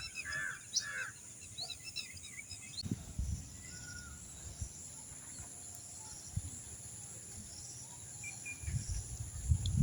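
Outdoor nature ambience: birds chirping for the first few seconds over a steady high insect drone, with a few low thuds, most of them near the end.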